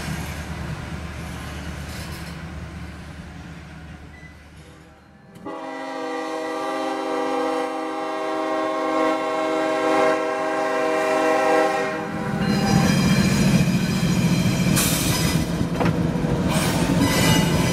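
A freight train's cars rolling past with a low rumble that fades away. Then a diesel locomotive air horn sounds one long blast of about six seconds at the grade crossing, and the lead GE Evolution-series locomotives pass close by with a loud low engine rumble and wheel noise.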